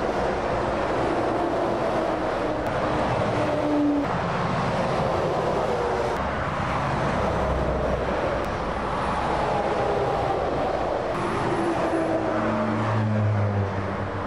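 Heavy articulated lorries passing one after another at motorway speed, with a steady rush of tyre and engine noise. Several times an engine tone slides down in pitch as a lorry goes by, and a deep engine drone builds near the end.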